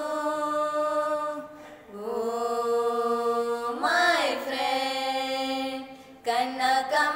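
A woman's singing voice holds long, drawn-out notes of a Kannada song. The pitch steps down about two seconds in and slides about four seconds in. A short break comes about six seconds in, before the next phrase starts.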